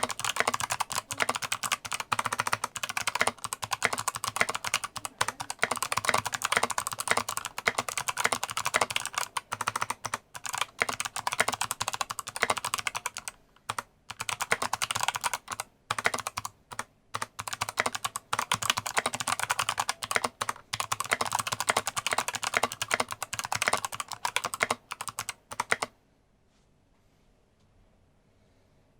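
Fast, continuous typing on a mechanical keyboard with Kailh Box White clicky switches, each keystroke a crisp click. Near the end the typing stops and it goes almost silent.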